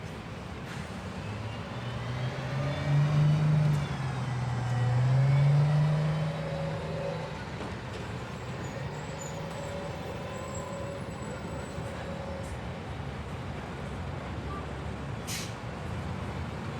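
A motor vehicle engine running, its pitch and loudness swelling and bending twice in the first half, then settling into a steady run, with one sharp click near the end.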